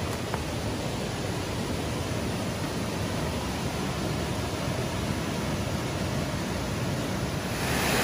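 Steady rush of water from a small creek waterfall cascading over granite boulders into a rock pool, growing louder near the end.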